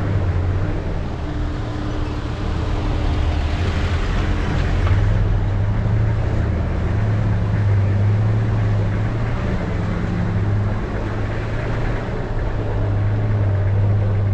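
A car running along a road: a steady engine drone with the hiss of road and tyre noise, the engine's pitch drifting slightly up and down.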